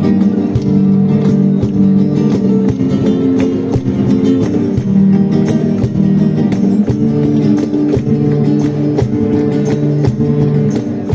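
Two Spanish guitars strumming a flamenco-style accompaniment, with a group clapping the beat by hand (palmas) in a steady rhythm.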